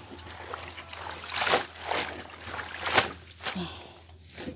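Water splashing and trickling as cabbage leaves are rinsed by hand, in uneven swells.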